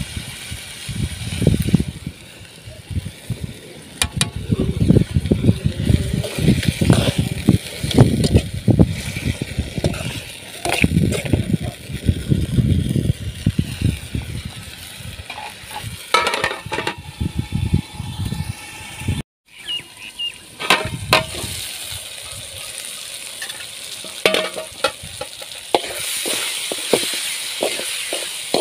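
Chopped raw tomatoes frying in an aluminium pan over a wood fire, sizzling, while a steel spoon stirs them and scrapes and clinks against the pan. Irregular low thumping rumbles run through the first half.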